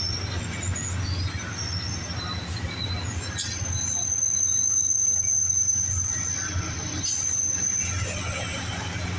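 Bi-level passenger railcars rolling slowly through a station with a steady low rumble and wheel squeal. Short high squeaks come in the first few seconds. Then a thin, steady high squeal sets in about three and a half seconds in and cuts off sharply near the end.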